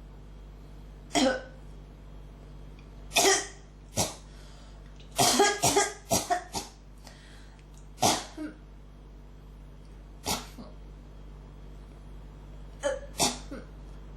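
A person coughing again and again in an ongoing coughing fit. Single coughs come every couple of seconds, with a quick run of about five in the middle and a pair near the end.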